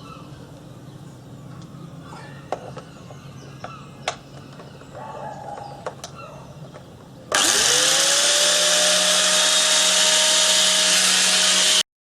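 A few light knocks, then an angle grinder converted into a strimmer is switched on: its motor whine rises as it spins up and settles into a loud, steady run with a rushing noise, cutting off abruptly near the end.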